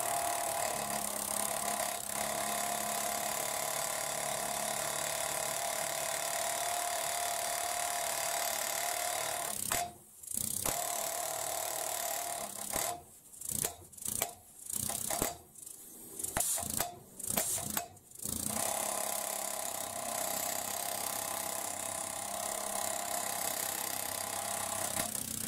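Valve-tapping (impact lapping) machine rapidly hammering a valve up and down on its seat in an OM366 cylinder head, lapping it in with paste. It runs steadily, stops briefly about ten seconds in, runs in short stop-start bursts for several seconds, then runs steadily again.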